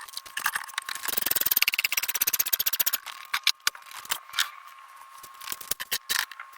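Handling of tools and parts: a fast, even run of sharp clicks lasting about two seconds, then scattered light clicks and knocks, over a faint steady high tone.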